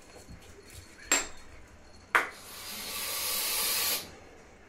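Two sharp knocks about a second apart, then a steady hiss lasting nearly two seconds that grows slightly louder and stops abruptly.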